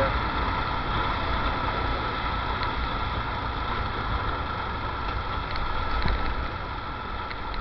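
A motorcycle riding along a city street: its engine running steadily under road and wind noise, easing a little near the end.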